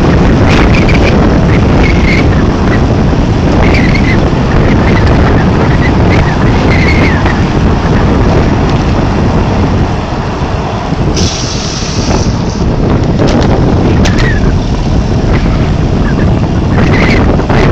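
Strong blizzard wind blowing hard over the microphone, a loud steady rush of noise, with short high squeaks every few seconds and a brief hiss about eleven seconds in.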